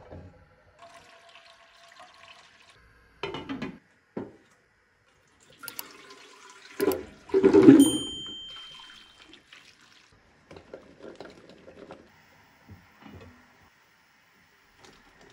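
Cookware being handled: clanks and knocks of a pan on a gas hob grate, and a glass lid clinking against a metal colander about eight seconds in, the loudest sound, leaving a short ringing tone. A faint wash of water runs underneath.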